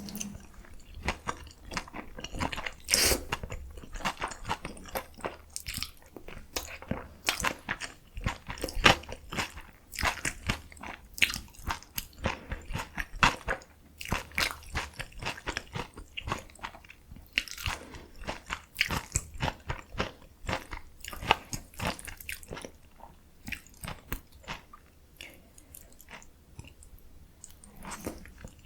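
Close-miked eating sounds: irregular crunching, biting and wet chewing of spicy noodles with young summer radish kimchi and kimchi dumplings.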